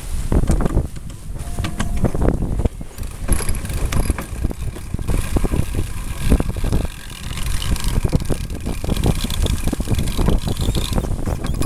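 Wind buffeting the microphone over the rush of water along the hull of a Norsea 27 sailboat heeled under sail.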